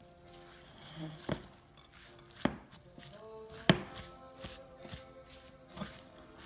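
A utensil knocking against a bowl, a few sharp knocks roughly a second apart, while a thick mix of lentils, vegan ground beef, sauerkraut and chopped vegetables is stirred together.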